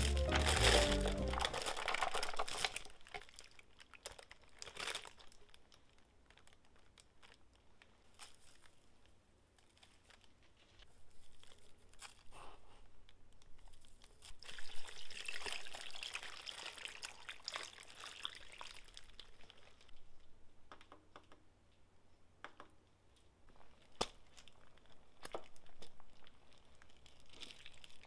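Background music fades out in the first couple of seconds. Then come scattered kitchen handling sounds: crinkling, sharp light clicks and knocks, and a few seconds of hissy noise around the middle.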